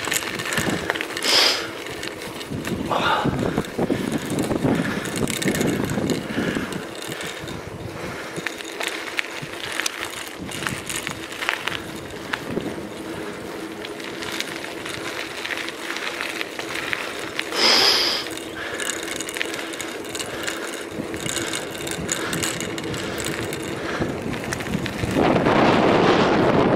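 A bicycle rolling along a tarmac road, with dense rapid ticking from its freewheel ratchet and rattling from its parts over the tyre noise. Near the end wind buffets the microphone.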